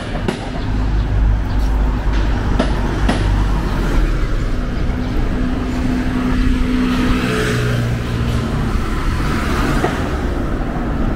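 Road traffic passing on a city street. A heavy low engine rumble comes first, then the hiss of tyres swells and fades as cars drive by.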